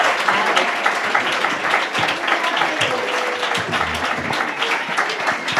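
Audience applauding, a dense, steady patter of many hands clapping.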